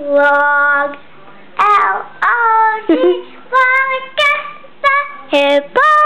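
Young girl singing with the hiccups: a string of short held notes with brief breaks between them.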